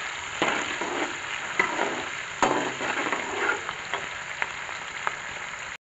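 Sliced onions sizzling in hot oil in a metal pot while a metal slotted spoon stirs them, with occasional scrapes and taps of the spoon against the pot. The onions are frying on their way to golden brown. The sound cuts off suddenly near the end.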